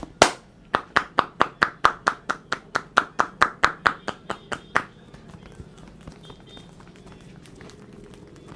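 Percussive massage strokes with the hands: a hard slap just after the start, then a rapid, even run of tapping slaps at about five a second that stops about five seconds in.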